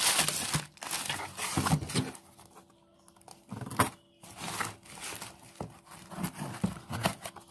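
Plastic mailer bag crinkling loudly as it is pulled off a parcel. After a quiet pause there is a sharp click, then scissors scraping and picking at packing tape on a cardboard box.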